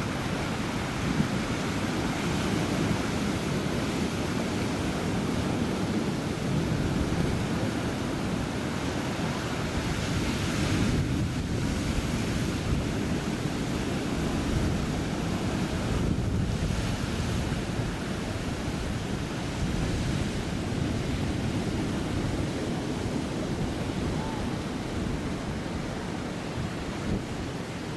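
Ocean surf breaking on a rocky shore, a steady rush of waves, with wind buffeting the microphone.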